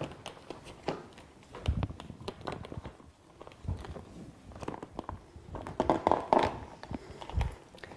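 Handling noise from an auscultation manikin's leg being slid onto its hip joint: scattered knocks, clicks and rubbing, with three dull thumps.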